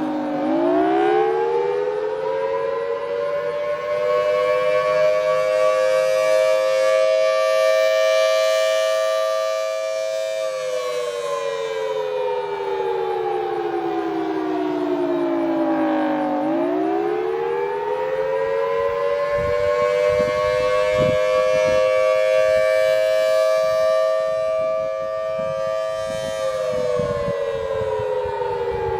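Federal Signal Thunderbolt 1000AT outdoor warning siren sounding its test cycle. Its two close tones wind up over a few seconds, hold, then slowly wind down, twice.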